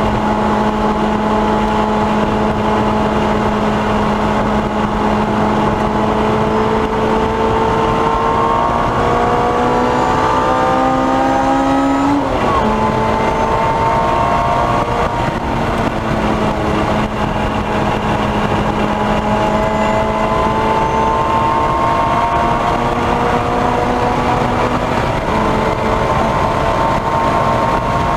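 Lotus Exige S engine pulling hard under full throttle, heard from inside the cabin over road and wind noise. Its pitch climbs, drops sharply at an upshift about twelve seconds in, then climbs again more slowly in the next gear.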